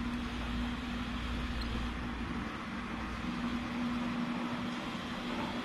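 Steady background noise with a low, even hum; no distinct event stands out.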